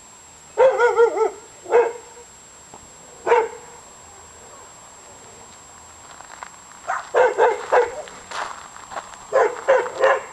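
Dog barking in short, sharp calls: a quick run of barks under a second in, two single barks, then faster runs of barking in the second half.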